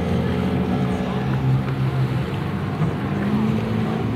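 Racing jet skis running at high speed, a steady engine drone over the hiss of spray, with the pitch rising slightly near the end.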